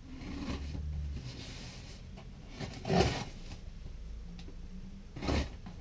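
Cardboard parcel being handled and opened: cardboard and packing tape scraping and rustling, with a sharp knock about three seconds in and another near the end.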